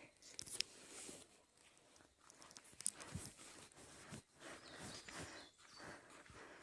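A person's footsteps on a road, soft irregular steps about one or two a second, over faint outdoor hiss. About halfway through a faint high call of higurashi cicadas comes in briefly.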